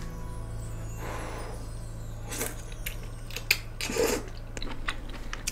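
A few short clicks and knocks over a steady low hum, the loudest about three and a half and four seconds in.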